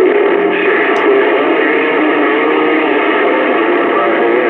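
Garbled, overlapping voices and tones coming through a CB radio's speaker, several stations transmitting at once so that no words come through clearly.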